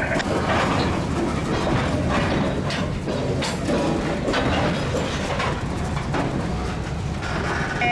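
Covered hopper cars of a freight train rolling slowly past close by: a steady low rumble of wheels on rail, broken by irregular clicks and clanks from the wheels and couplers.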